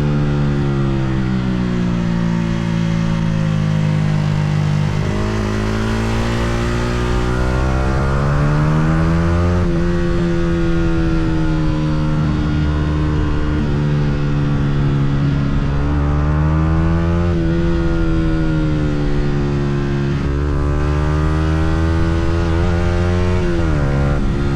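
Yamaha R125's single-cylinder four-stroke engine under way, its pitch climbing and falling repeatedly as the rider works the throttle, with quick drops and recoveries near the start and near the end like gear changes.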